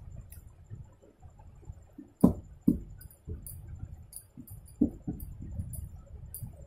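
Eating rice and curry by hand from a steel plate: chewing and wet mouth clicks, with fingers pushing rice across the plate and a few sharper knocks against the metal.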